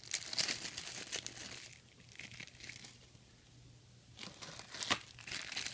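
Thin clear plastic bag crinkling as a small camera mount inside it is handled and unwrapped. It goes quiet for a couple of seconds in the middle, then crinkles again, with a sharp click near the end.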